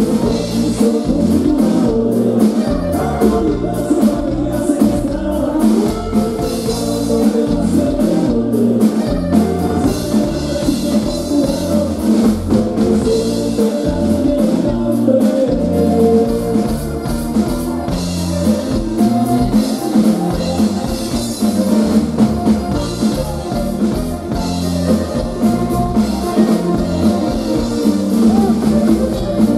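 Live band music, loud and steady: a drum kit keeps the beat under a saxophone section.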